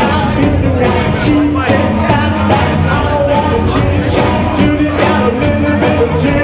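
Live rock band playing loud, the drums keeping a steady beat about twice a second.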